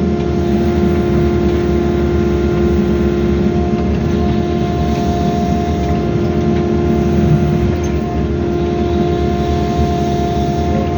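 Wheeled excavator's diesel engine and hydraulic pump running steadily under load while the bucket scrapes away topsoil, with a constant whine over a low rumble.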